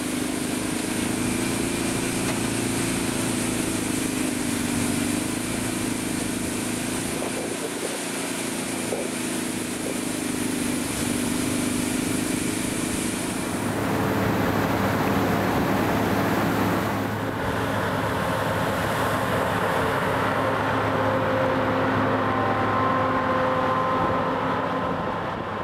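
Combine harvester with a stripper header running while it harvests standing grain: a steady machine hum with a wavering engine note. The sound changes character about halfway through and fades out near the end.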